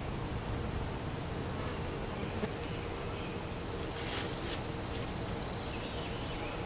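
Steady outdoor background noise: a buzzing hiss with faint bird chirps, and a brief burst of hiss about four seconds in.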